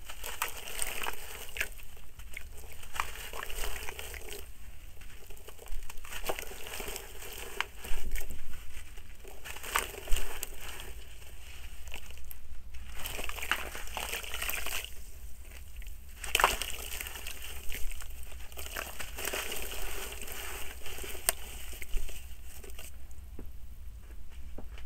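Gritty compressed soil block crushed and crumbled by hand into a basin of water: crackling, crunching grit, with splashing and sloshing as the crumbs fall into the water. Quieter near the end.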